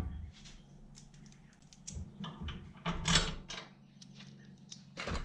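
Scattered light clicks and clinks of metal hardware being handled by hand on a garden tractor's steel frame, with louder rattling clusters about three seconds in and again near the end, over a faint steady low hum.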